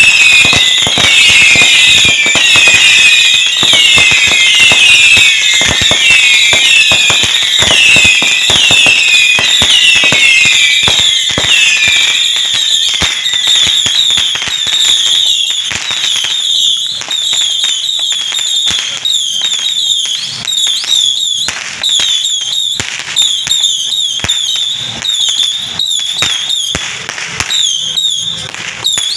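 Firecrackers going off in fast, dense cracking, with repeated high whistling tones that fall in pitch over them. The cracks come thick for the first half, then thin out into sparser, uneven bangs.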